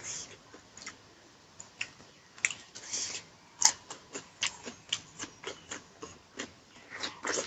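A person eating close to the microphone: wet chewing and lip-smacking clicks in an uneven run of several a second, with one sharper click about halfway through.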